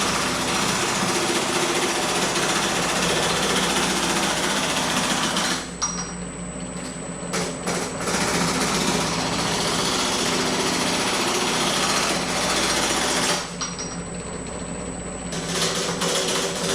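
Pullmax reciprocating machine working the edge of a sheet-steel patch panel with flanging dies, a rapid, continuous hammering chatter over the motor's steady hum. It stops working the metal twice for about two seconds while the motor keeps running.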